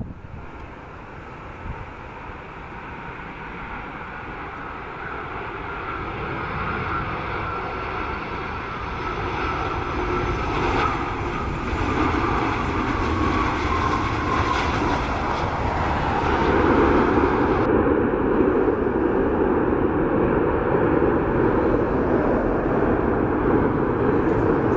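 Airbus A330 jet engines on landing approach, growing steadily louder, with a falling whine as the airliner passes. From about sixteen seconds in comes a louder, steady jet rush as it touches down on the wet runway.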